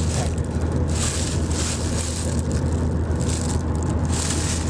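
Road and engine noise inside a moving car's cabin: a steady low rumble, with a few brief bursts of rustling from packaging being handled.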